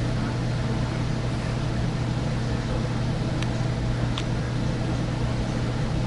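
Air handler running with a steady low hum and the rush of its blower. Two faint ticks sound a little past the middle.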